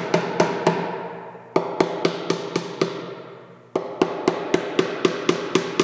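Hammer tapping finishing nails into the wooden corner trim of a plywood chest, driving them almost flush. Light, quick blows about four a second, each ringing briefly, in three runs with short pauses between.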